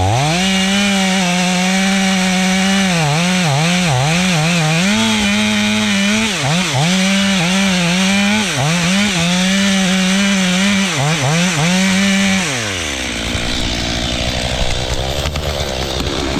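Two-stroke chainsaw running at high revs, its pitch dipping again and again as it loads up in the cut. About twelve seconds in, the throttle drops off, and a noisy rush takes over.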